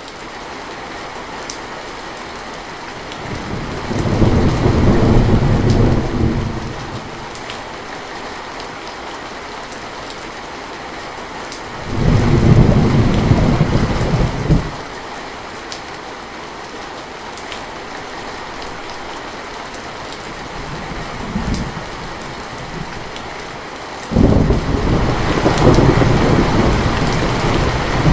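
Steady rainfall with rolling thunder. Long low rumbles come a few seconds in, again about twelve seconds in, and from about 24 seconds on, with a short faint rumble just after 21 seconds.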